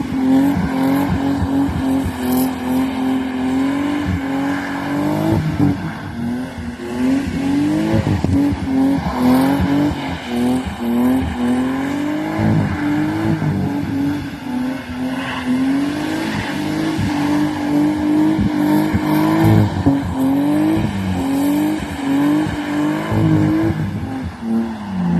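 BMW E36 coupe's M50 straight-six engine, revved hard while the car is driven on snow, its pitch repeatedly climbing and dropping.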